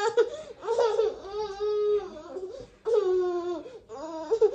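A baby boy fussing and crying in several drawn-out, wavering, high-pitched wails.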